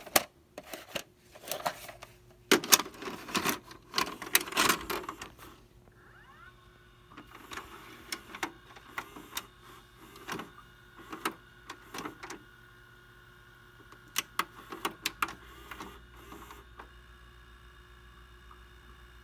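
Plastic clatter of a VHS cassette being handled and pushed into an Emerson four-head VCR, then the VCR's tape mechanism whirring with a series of sharp clicks as it loads the tape. Near the end it settles into a steady low motor hum as the tape rewinds.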